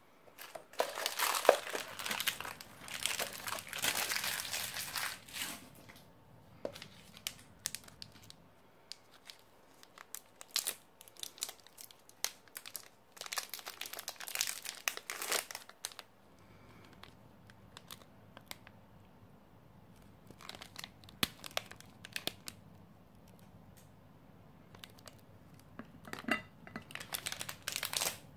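Wrapper of a dark chocolate bar being torn open and crinkled by hand: three spells of crackling, the longest at the start, with scattered clicks between.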